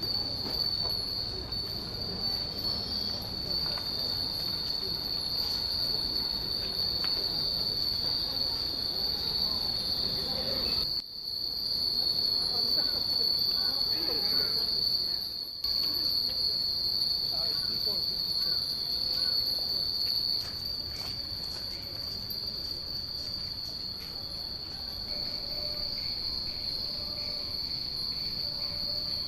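A steady high-pitched insect drone over many hanging Japanese wind chimes (fūrin) tinkling faintly, with a low murmur of people in the background.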